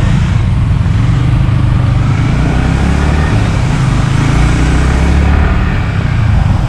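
Yamaha R15 V3's 155 cc single-cylinder four-stroke engine running steadily as the bike rides along, heard from the rider's seat with road noise.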